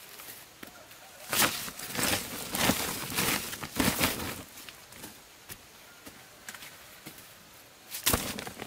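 Woven plastic sack rustling and crinkling as it is handled and ears of corn in their husks are dropped into it: a run of rustling from about a second in to four seconds in, and another brief burst near the end.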